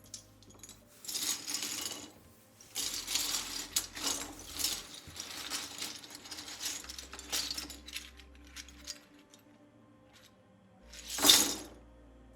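Plastic keycaps clinking and rattling as they are handled and unpacked, in irregular bursts, with a short, louder rustle near the end.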